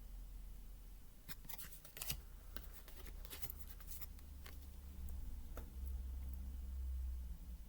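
Tarot cards and card stock being handled by hand: a quick run of soft clicks and rustles about a second in, a few more near the middle, over a steady low hum.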